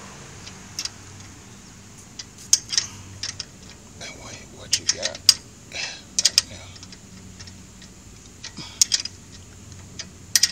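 Irregular metallic clicks and ticks of a hand wrench on the caliper bolt of a 2006 Dodge Charger's rear brake as the bolt is tightened down, some in quick clusters.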